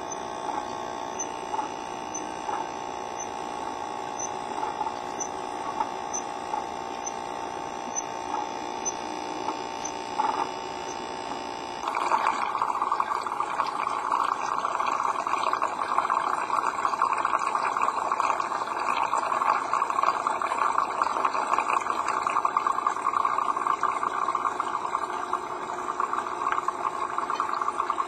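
Small electric motor of an HO-scale model accessory humming steadily, with a light tick about every two-thirds of a second. About twelve seconds in it gives way to a louder, rougher buzzing hum.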